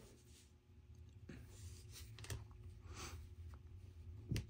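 Faint handling of trading cards: soft sliding with a few light clicks, the sharpest one a little before the end.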